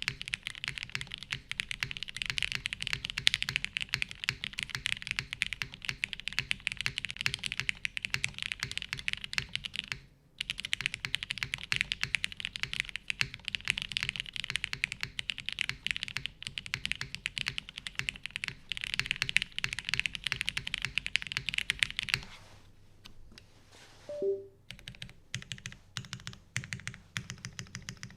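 Typing on a TGR Jane V2 custom mechanical keyboard with retooled Cherry MX Black linear switches lubed with Krytox 205g0, a carbon fiber half plate and CRP keycaps. Fast, continuous keystrokes with a brief pause about ten seconds in, then slower, separate keystrokes for the last six seconds.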